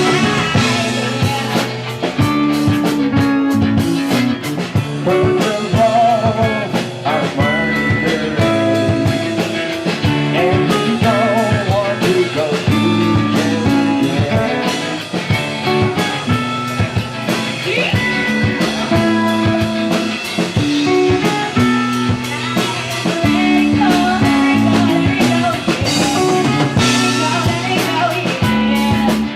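Band jamming an improvised rock-blues groove: guitar, bass and drum kit, with a voice singing over it.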